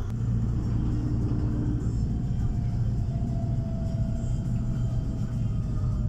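Steady low rumble of a car driving along a road, heard from inside it: engine and road noise.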